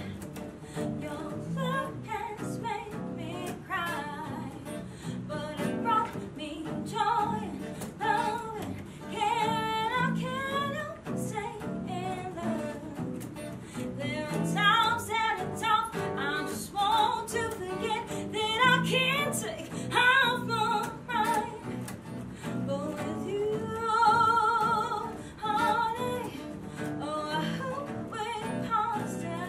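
A woman singing a pop song to two acoustic guitars strummed and picked together, with some held notes sung with vibrato.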